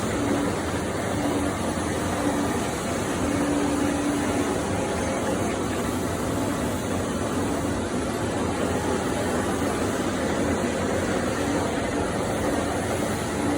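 Lathe running while turning the raceway of a slewing bearing: a steady machine noise with a low hum that comes and goes.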